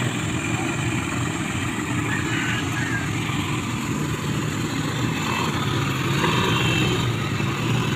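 Several ATV (quad bike) engines running as the quads move off across a dirt field, a little louder about six seconds in as one passes close.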